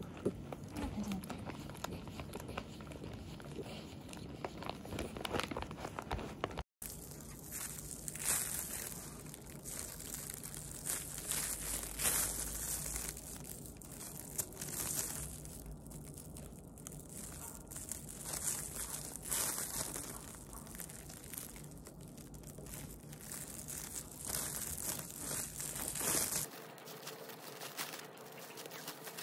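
Strips of plastic bag crinkling and rustling as they are hand-knitted into a bag, in irregular bursts of crackly rustle.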